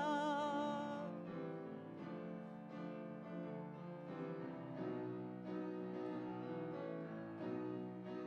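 A woman's voice holds the last sung note with vibrato until it ends about a second in. A grand piano then plays chords on its own.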